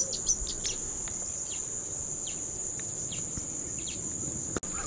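Steady, high-pitched, unbroken chorus of insects such as crickets shrilling in the reeds, with a few faint short chirps over it. It cuts out for an instant near the end.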